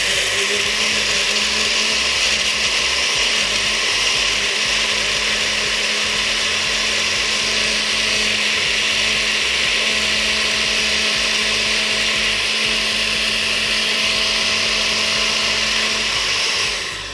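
Countertop blender with a glass jar running steadily at one speed, with a steady motor hum, blending chunks of tomato, onion and pepper with beer into a liquid. It winds down and stops near the end.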